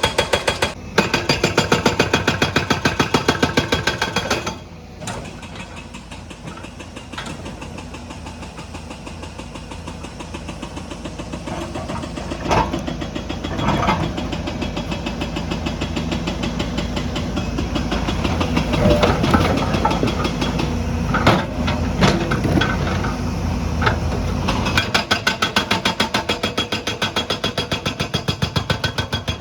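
JCB's hydraulic stone breaker hammering in rapid, evenly spaced blows. It stops about four seconds in, leaving the diesel engine running with scattered knocks and clanks. The hammering starts again near the end.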